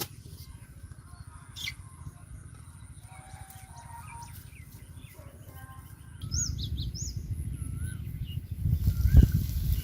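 Small birds chirping and whistling in short scattered notes, with quick high arching calls about six seconds in, over a low rumble that grows louder in the second half.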